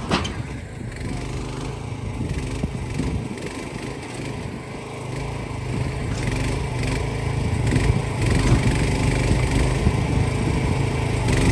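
Mini excavator's small single-cylinder-type engine running steadily as the machine works, getting louder about halfway through.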